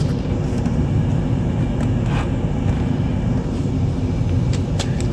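Steady low mechanical rumble, like a running motor, with a few faint light clicks.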